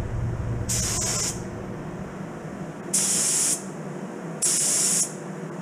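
Gravity-feed spray gun spraying Cerakote clear coat at 30 PSI, hissing in three short passes of about half a second each, over the steady drone of the spray booth's exhaust fan.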